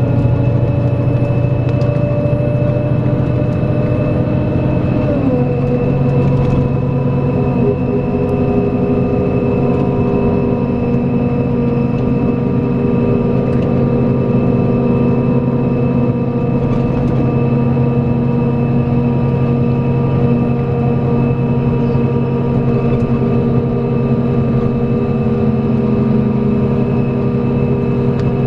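Scania K410EB6 coach's 13-litre straight-six diesel running steadily under way. About five seconds in, the engine note drops a little, then holds steady.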